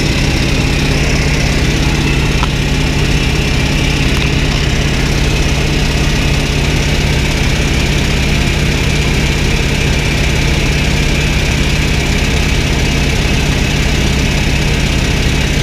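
North American T-28 Trojan's radial piston engine and propeller running steadily in cruise flight, heard from the cockpit as a loud, even drone.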